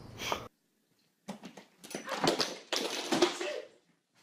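A cat making several short, rough, noisy sounds.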